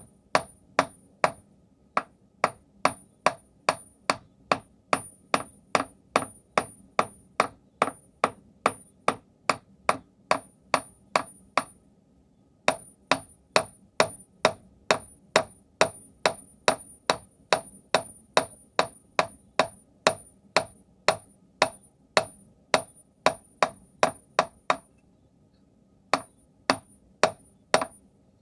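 Hand hammer striking hot steel on an anvil, drawing out an arrowhead: sharp ringing blows about two a second in long runs, with short pauses between heats or repositionings, and a last quick set of four near the end. A faint steady hum runs underneath.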